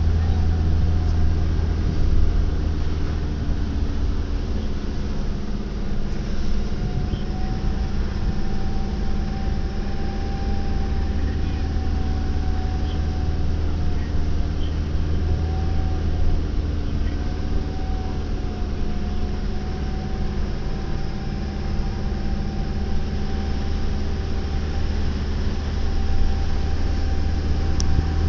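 Off-road 4x4 driving at a steady pace on firm beach sand, heard from inside the cabin: a continuous low engine and road drone with a faint whine that drifts slightly in pitch.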